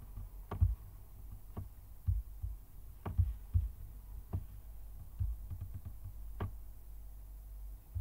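Irregular computer mouse clicks, each with a low thump, a few seconds apart, over a steady low hum.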